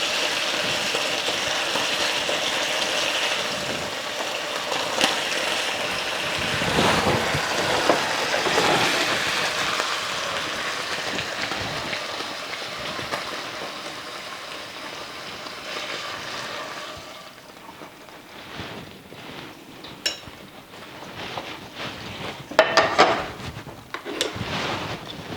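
Pork chops sizzling as they brown in oil in a skillet. The sizzle drops off about two-thirds of the way through, and a few sharp knocks follow near the end.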